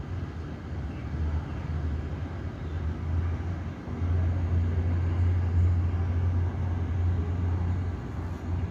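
Low, steady rumble of airport apron noise heard through terminal window glass, from taxiing aircraft and ground vehicles. It swells about halfway through and eases off near the end.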